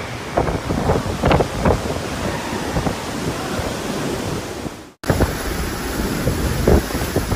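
Hurricane wind gusting and buffeting the microphone over a steady roar of wind-driven rain. The sound cuts off abruptly about five seconds in and picks up again as another stretch of storm wind and rain.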